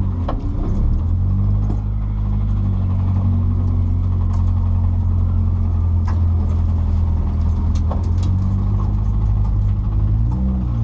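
Nissan 240SX S14's engine running steadily at a near-constant speed, with a few faint scattered clicks.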